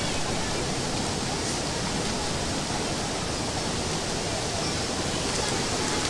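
Steady rushing noise of running water, even and unbroken.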